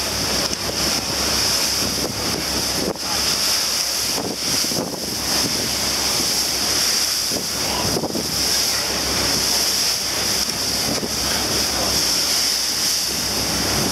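Wind buffeting the microphone aboard a fast-moving boat, over a steady rush of water and spray from the boats' wakes.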